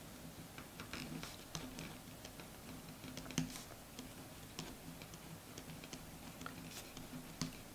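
Shands Very Peri 0.5 mm gel pen writing on a paper pen test sheet: faint, irregular small taps and light scratches as the letters are formed.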